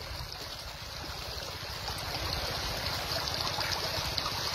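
Shallow river water running and trickling over rocks, with light splashing of water stirred by a hand.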